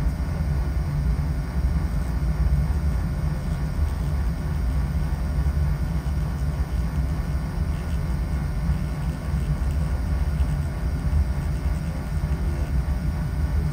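Oil burner of a residential oil-fired boiler firing steadily, a constant low rumble of flame and burner blower, during a combustion test.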